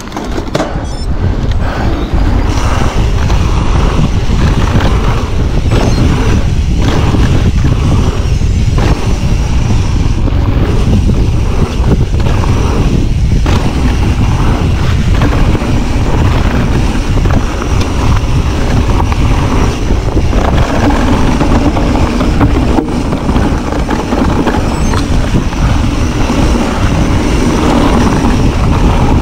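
Wind buffeting an action camera's microphone on a fast e-mountain-bike trail run, with tyres rumbling over the dirt and the bike rattling over bumps in many short knocks. A steady low hum joins about two-thirds of the way through.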